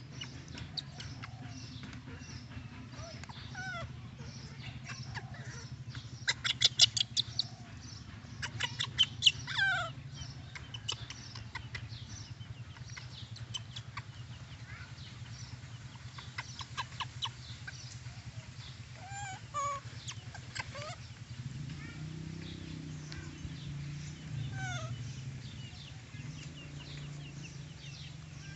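Scattered short animal chirps and a few quick runs of clicks, over a steady low hum that gets louder about three quarters of the way through.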